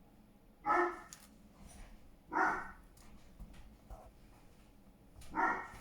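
A dog barking three times, a few short barks spaced over several seconds.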